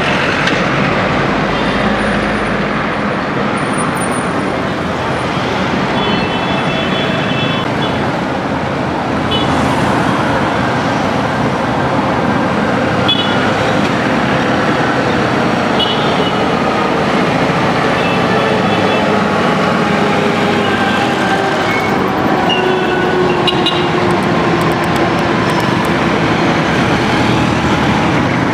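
Busy city street traffic: cars, motorcycles, minibuses and a lorry passing, engines running steadily. Brief high tones sound now and then, and in the second half an engine's note sinks slowly.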